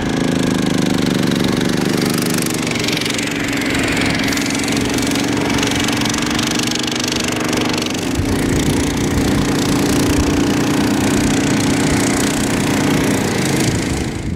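Snowmobile engine running at a steady pitch as it tows passenger sleds across the ice, with a steady hiss above it.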